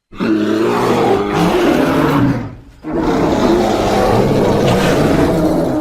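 Giant panda calling: two long, harsh, throaty calls of about two and a half seconds each, with a short break between them.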